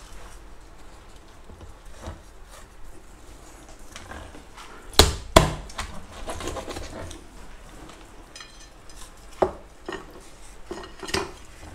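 Kitchen knife cutting through a John Dory on a plastic cutting board: quiet slicing and scraping, broken by sharp knocks, two loud ones just under half a second apart about five seconds in and another a few seconds later.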